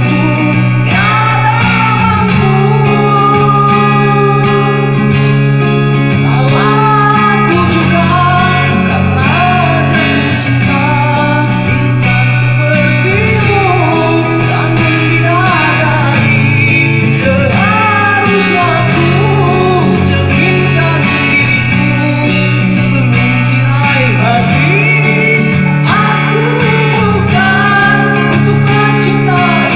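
A voice singing a melody over guitar accompaniment, with steady held chords underneath.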